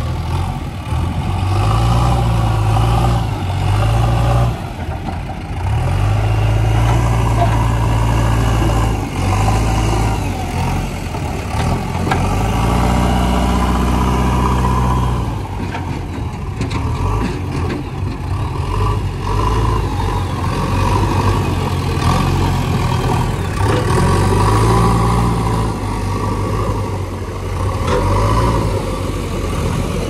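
JCB 3DX backhoe loader's diesel engine working at close range, its revs rising and falling again and again as the front loader bucket is driven into a heap of soil.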